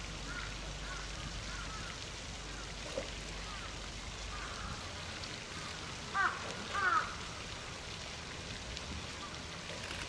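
Steady hiss and patter of fountain water falling. About six and seven seconds in come two short calls, each falling in pitch, and a few faint chirps sound early on.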